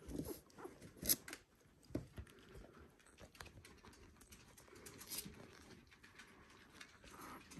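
Week-old Border Collie puppies making small grunts and squeaks amid soft rustling on their bedding. A few sharp clicks come about one and two seconds in.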